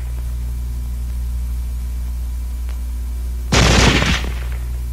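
A single carbine shot about three and a half seconds in, ringing out for about half a second, over the steady low hum of an old film soundtrack.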